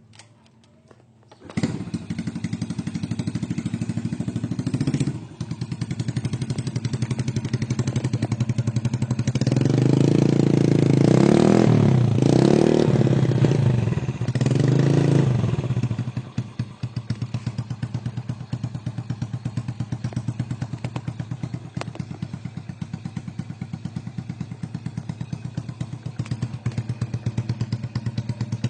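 Yamaha Vega ZR single-cylinder four-stroke motorcycle engine started about a second and a half in, then idling. Around the middle it is revved in several rising-and-falling blips, then it settles back to a steady, pulsing idle.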